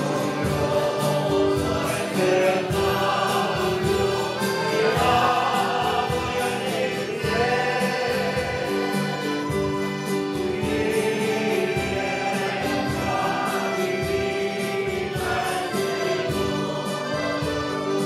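Church choir singing a Spanish hymn, accompanied by strummed acoustic guitar and mandolins.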